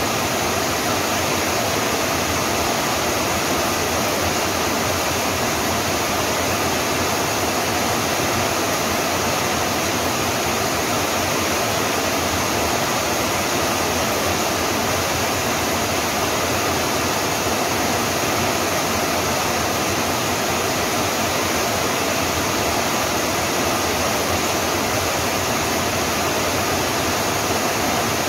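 Steady rain: a dense, even hiss with no single drops standing out.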